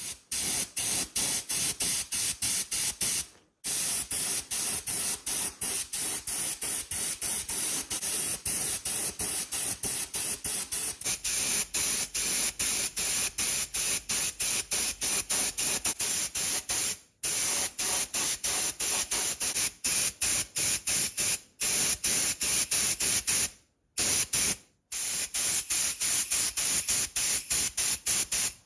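Loud, steady hissing spray noise, broken by many very short gaps; a faint high whistle joins it about eleven seconds in.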